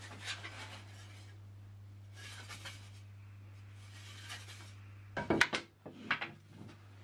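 Strips of plum wood and a paler wood handled over a wooden workbench: soft sliding and rubbing, then a cluster of sharp wooden knocks about five seconds in and a smaller one a second later as the strips are laid together. A steady low hum sits underneath.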